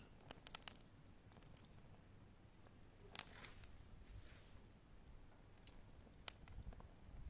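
Small split-wood campfire crackling faintly, with scattered sharp pops and snaps.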